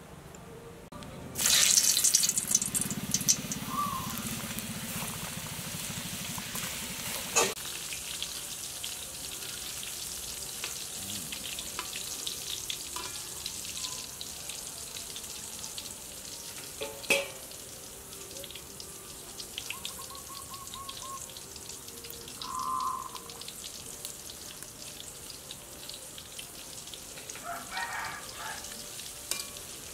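Wontons deep-frying in hot oil in a wok. The sizzling starts suddenly and loudly about a second and a half in, then settles to a steady sizzle, with two sharp clicks along the way.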